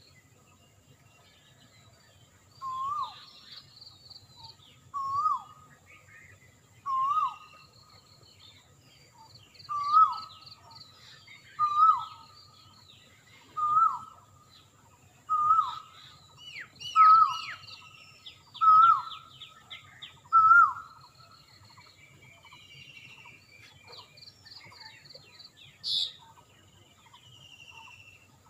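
Birdsong: one bird repeats a short whistled call about every two seconds, ten times, each call louder than the last, then stops. Fainter chirping of other birds runs underneath, with one brief sharp high chirp near the end.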